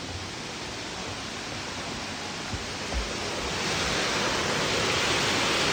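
A waterfall's steady rushing hiss of falling water, growing louder a little past halfway through. A couple of soft low thumps in the middle.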